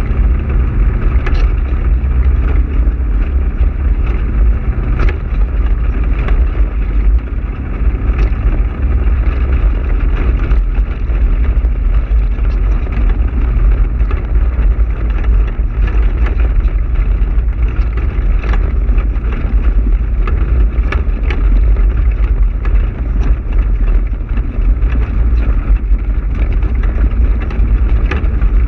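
Polaris RZR side-by-side driving over a rough dirt track: a steady, loud low rumble of engine and motion, with scattered clicks and rattles from the bumpy ride.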